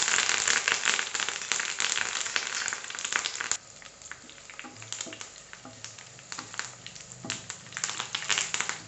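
Curry leaves sizzling loudly as they hit hot oil with mustard seeds and urad dal in a frying pan, the start of a South Indian tempering. The sizzle drops off abruptly about three and a half seconds in, leaving scattered crackles and pops as the mustard seeds splutter and a wooden spatula stirs the pan.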